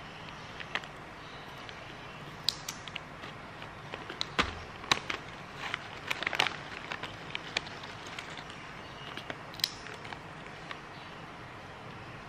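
Scattered small clicks, taps and crinkles of handling at the snack-feeding table, with a foil snack packet and hands working around a baby monkey. They are thickest in the middle and die down near the end, over a steady low hiss.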